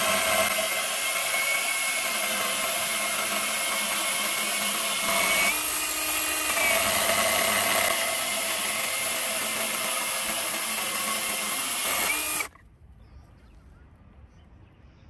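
Cordless 8-inch mini chainsaw's electric motor running at speed as its chain cuts through a wooden pole, a steady high whine that rises in pitch briefly about five and a half seconds in. The motor stops suddenly about twelve and a half seconds in.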